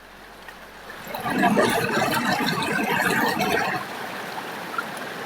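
Floodwater rushing and splashing, louder from about a second in until nearly four seconds, then flowing more steadily and quietly.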